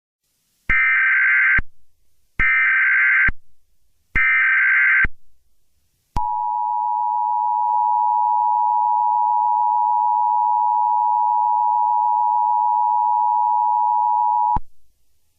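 Emergency Alert System header: three data bursts of buzzy high warbling tones, each just under a second, then the steady two-tone attention signal held for about eight seconds. Together they mark the start of a new emergency alert.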